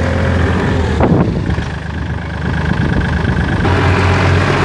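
Kubota L3608 tractor's diesel engine running steadily while pulling a loaded rice hauler through mud, with a sudden knock about a second in.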